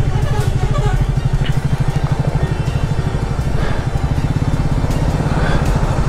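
Single-cylinder motorcycle engine idling with a steady, rapid low pulse.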